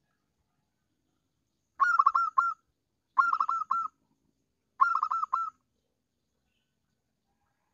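Zebra dove (perkutut) cooing: three short bursts of quick, rhythmic coo notes, about two, three and a half and five seconds in. It is the kind of call used as a lure to draw in rival doves.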